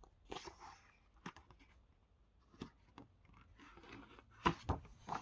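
Quiet handling of a paper picture book: scattered soft taps and paper rustles, with two sharper taps about four and a half seconds in.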